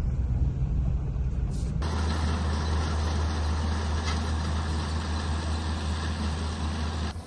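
Tractor engine running steadily, with a low steady rumble whose sound changes abruptly about two seconds in.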